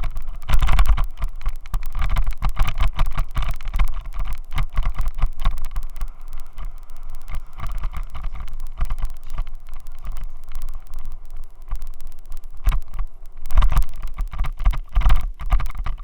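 Continuous rattling buzz with a heavy low rumble from a helmet camera mount vibrating, picked up through the Xiaomi Yi action camera's own microphone. The loose, vibrating mount is the cause of the noise.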